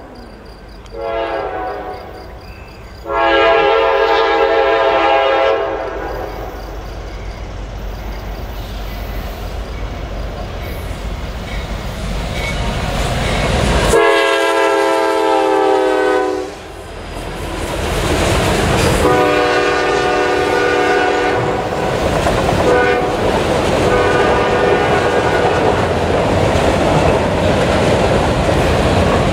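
Norfolk Southern freight train passing, led by a GE C40-9W diesel locomotive that sounds its air horn in a series of short and long blasts, the loudest as the locomotive goes by midway. Under the horn are the rumble of the diesel engines and the clickety-clack of autorack cars rolling over the rails.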